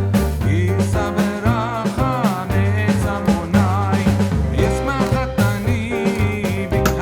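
Background music: a song with a singing voice over bass and a steady drum beat.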